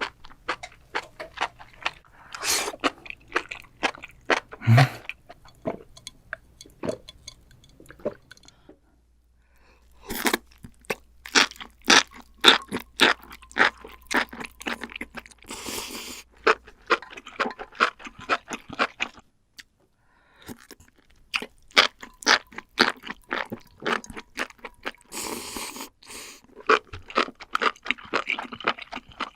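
Close-miked crunching and chewing of crunchy mushrooms: quick runs of sharp crunches, broken twice by about a second of silence.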